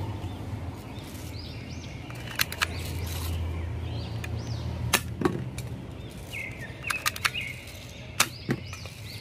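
Toy light machine gun shooting at plastic bowling-pin targets: a scatter of sharp clicks and pops, a few in quick succession about seven seconds in, as shots land and pins are knocked off.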